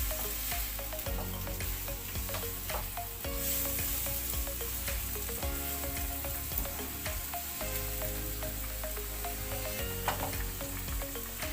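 Mushrooms sizzling as they fry in olive oil in a pan, with the spoon clicking and scraping against the pan as they are stirred.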